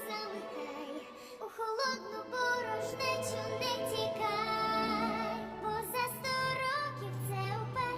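A woman singing a slow, held melody with vibrato over instrumental backing, the voice given an airy, processed 'angel' effect.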